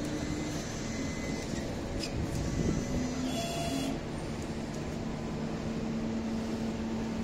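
Steady machine noise of a factory hall, with a low even hum that grows stronger about three seconds in and a brief high electronic tone a little later.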